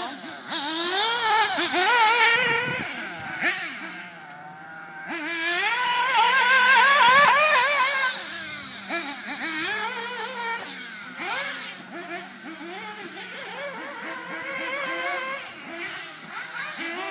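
Several 1:8-scale nitro RC buggies' small two-stroke glow engines revving hard, their high pitch constantly rising and falling as they accelerate and brake around the track. The sound is loudest as one buggy passes close, about six to eight seconds in.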